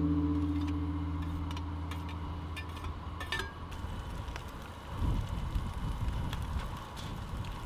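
Sliced beef short rib sizzling and crackling as it fries in a cast iron skillet on a gas camp stove. A guitar chord rings out and fades over the first second or two.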